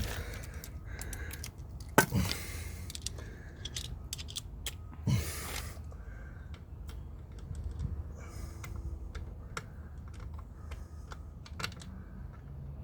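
Irregular small clicks and taps, with a sharp click about two seconds in and short scrapes, from fiddling a gearbox oil plug screw back into the lower unit of a Honda 9.9 four-stroke outboard.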